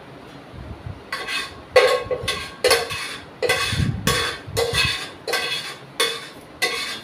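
Stainless steel cooking pot clanking and ringing as it is knocked and tapped about a dozen times, roughly two a second, starting about a second in, while boiled chana dal is tipped out of it to drain.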